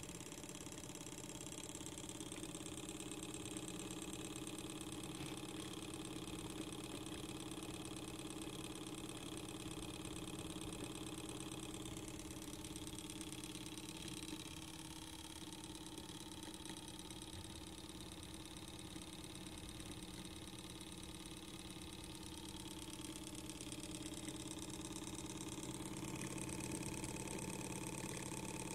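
Small homemade laminar-flow Stirling engine running steadily on the heat of an alcohol lamp: a fast, even mechanical running sound that keeps a constant pace.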